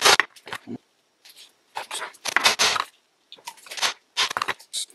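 Hammer blows driving a steel shaft through a Triumph gearbox shift housing, coming in several short clusters of sharp taps with brief pauses between them.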